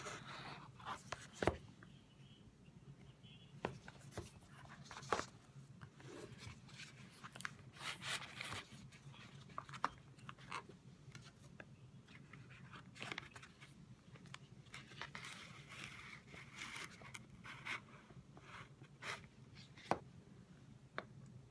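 Scattered light clicks, taps and scratchy rubbing of small tools and a phone being handled on a work surface, over a faint steady hum.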